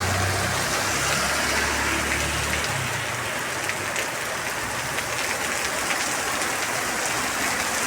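Very heavy rain pouring down in a dense, steady hiss. A low rumble sits under it for the first two and a half seconds and then fades away.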